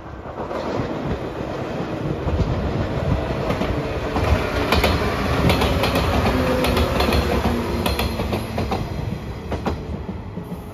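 JR 115 series electric train in Shonan livery passing close by: the rumble builds, is loudest around the middle and fades away, with the wheels clacking in quick pairs over the rail joints.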